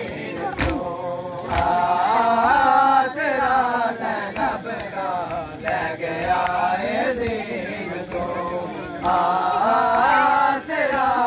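Mourners' voices chanting a noha (Muharram lament) in a repeated melodic line, with a few sharp hand slaps in the first two seconds: the strokes of matam chest-beating.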